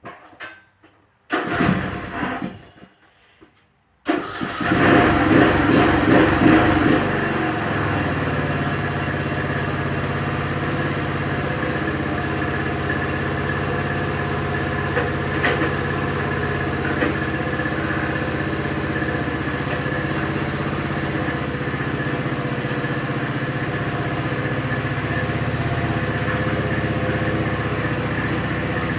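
Riding lawn mower engine starting: a short crank about a second and a half in, then it catches about four seconds in, runs louder and unevenly for a few seconds, and settles into a steady run.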